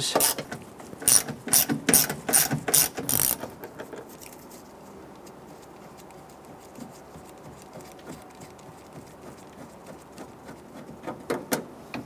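Ratchet with a T25 Torx bit clicking as it loosens the door latch screws, about three clicks a second for the first three seconds or so. It then goes quiet, with a few more clicks shortly before the end.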